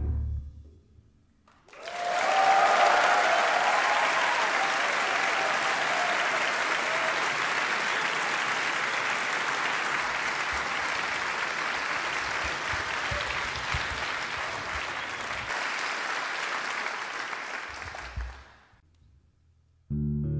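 Concert audience applauding, with a few cheers near the start, for about sixteen seconds after a piece ends, then fading out. Plucked notes, likely bass, begin just at the end.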